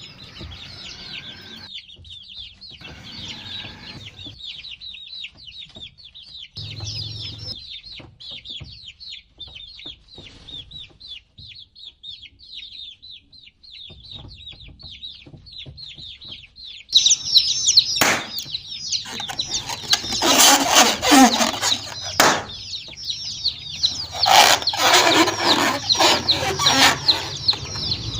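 A group of baby chicks peeping continuously in rapid, high chirps. About seventeen seconds in the chirping gets louder and is joined by repeated loud scuffling bursts.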